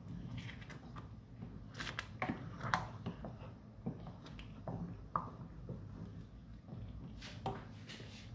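Thick cornstarch-thickened sauce simmering in a pot as it is stirred with a spatula: soft wet pops, squelches and scrapes at uneven times.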